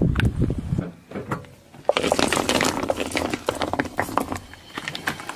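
Car tyre rolling over and crushing a printed cup on asphalt. It gives a sharp crack about two seconds in, then a run of crackles and pops as the cup gives way. Before that, a low rumble of the tyre on the road dies away within the first second.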